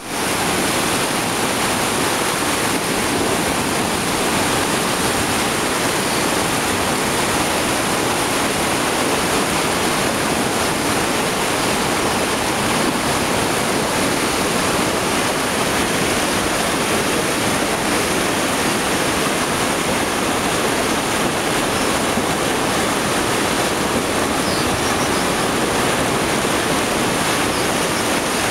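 Monsoon-swollen river in flood, its fast brown water rushing and churning over rocks in a steady, loud roar without a break.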